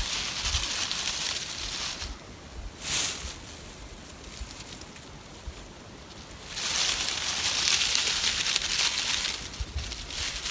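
Hissing rustle from a dry-leaf tinder bundle being worked to bring a hand-drill ember to flame. It comes in two long spells, the second about two and a half seconds, with a quieter lull and one short burst between.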